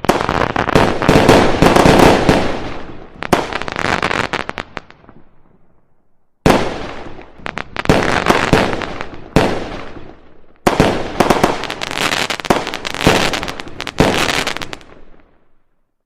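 Firecrackers going off in three long volleys of rapid bangs, with a short silent break between the first and second.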